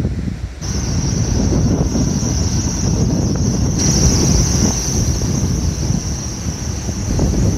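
Wind buffeting the microphone, with a steady high-pitched whine from a parked refrigerated delivery lorry's cooling unit that starts about half a second in and grows louder at about four seconds.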